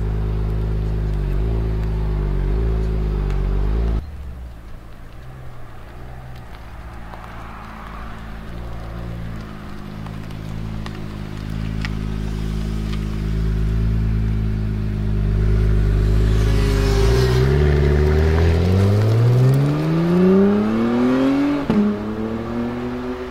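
2016 Honda NSX's twin-turbo V6 idling steadily, then running at low speed. From about two-thirds of the way in, the engine pulls hard under acceleration with its note climbing, dips briefly at an upshift, and climbs again.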